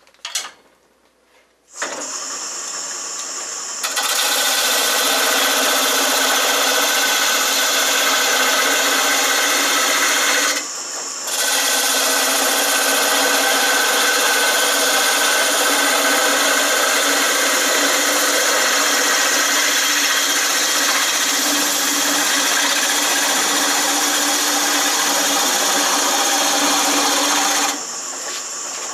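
A Shopsmith woodworking machine in lathe mode starts up about two seconds in and runs with a steady hum. From about four seconds a hand turning tool scrapes a spindle of very hard wood, giving a loud continuous rasp. The rasp pauses for under a second near the middle and stops near the end while the lathe keeps running.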